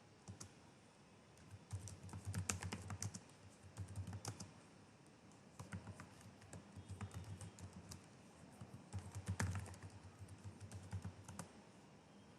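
Typing on a computer keyboard: irregular runs of key clicks with short pauses between them, as a command is typed into a command prompt.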